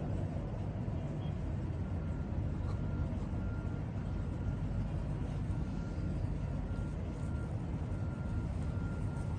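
Steady low rumbling background noise, like traffic or a machine running nearby, with a faint high tone that comes and goes.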